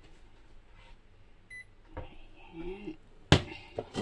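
A short electronic beep from a glass-top electric stove's touch controls about one and a half seconds in. Then a few clunks as a pot is set down on the glass hob, the loudest about three seconds in.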